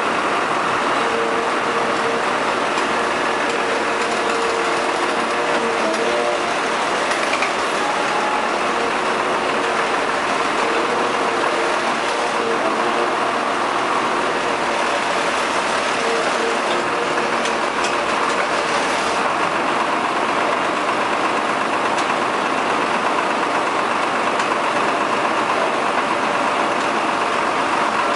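Amphibious excavator's diesel engine running steadily under load as its boom holds a lifted machine, with a faint hydraulic whine that comes and goes.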